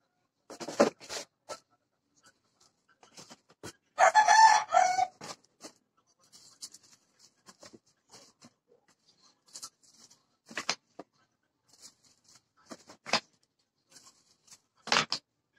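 A loud bird call lasting about a second, about four seconds in. Around it come a few short knocks and soft rustles of plastic-wrapped candle packs being set into a cardboard box.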